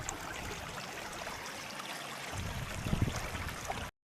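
Steady rushing of running water, with low rumbling gusts of wind on the microphone about three seconds in. The sound cuts off abruptly just before the end.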